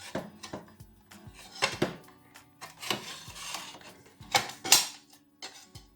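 Metal clinks, knocks and a short scrape as a new circular saw blade is handled and fitted onto a miter saw's arbor, the loudest clatter about four and a half seconds in. Quiet background music underneath.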